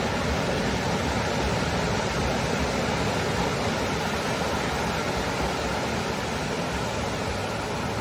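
Ocean surf: waves breaking offshore and shallow water washing over flat sand, a steady rushing noise.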